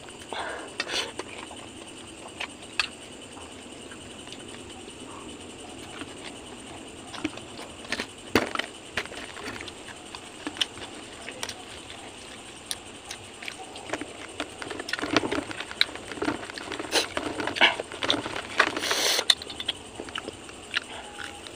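Close-up eating sounds of a man eating grilled fish with his hands: chewing and lip-smacking with scattered sharp clicks, coming thicker in the second half.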